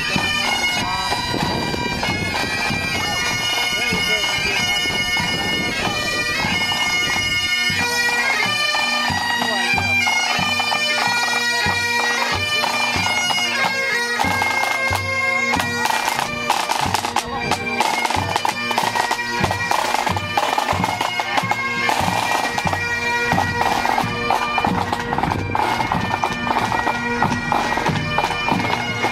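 Bagpipes playing a tune over their steady drone, with drumming joining in about halfway through.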